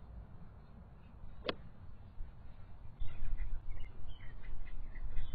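A single sharp click of a golf club striking the ball from some distance, then birds chirping in quick short calls, over a low wind rumble.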